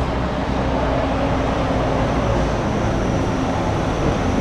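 City bus engine running steadily close by, a continuous low-pitched mechanical sound with no sudden events.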